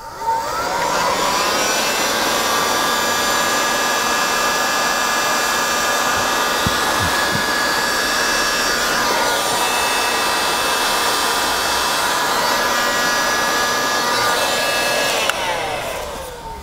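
Electric heat gun switched on, its fan spinning up with a rising whine, then running steadily while shrinking heat-shrink tube over soldered wire joints. Near the end it is switched off and its pitch falls as the fan winds down.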